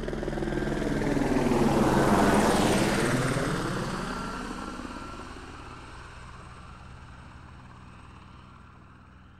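An aircraft flying past: an engine drone swells to its loudest about two seconds in, then fades slowly away as its pitch falls.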